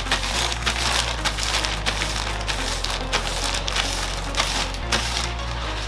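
Thin plastic bag crinkling and crackling steadily as it is handled and rubbed over short hair close to the microphone.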